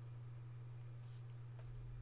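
Quiet room tone with a steady low electrical hum and two faint, brief rustles.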